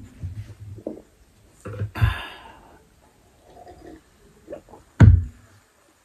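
A person breathing hard and hissing through the mouth from the burn of very spicy noodles, with sips of water. Two heavy thumps against the table come about two seconds in and about five seconds in.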